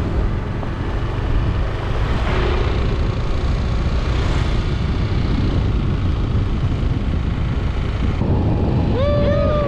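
Steady wind rush and road and engine rumble heard from a moving Yamaha NMAX scooter. Near the end a short pitched tone holds and then falls away.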